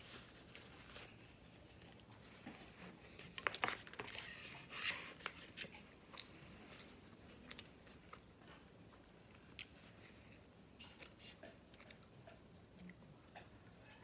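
Faint close-miked chewing and wet mouth clicks from eating a beef sandwich, with a paper napkin rustling. The sounds are busiest about three to five seconds in, then thin out to scattered clicks.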